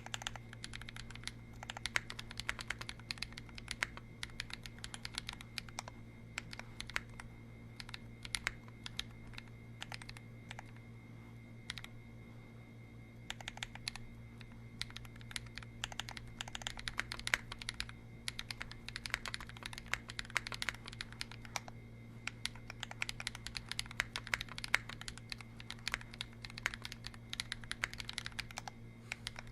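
Fast typing on a 60% custom mechanical keyboard with lubed Holy Panda tactile switches and C3 stabilizers, in an aluminum case with a brass weight: a dense, irregular run of keystrokes that thins out to scattered presses for a few seconds in the middle. A steady low hum sits underneath.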